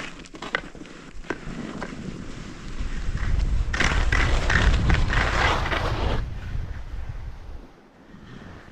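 Skis scraping and sliding over snow, louder for about three seconds in the middle, with a few sharp clicks near the start.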